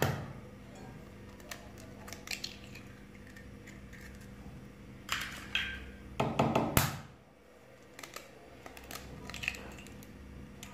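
Eggs cracked one at a time on the rim of a glass bowl: a string of sharp taps and shell crunches, loudest in a cluster a little past halfway, with broken shells set down on a glass dish. A faint steady hum runs underneath.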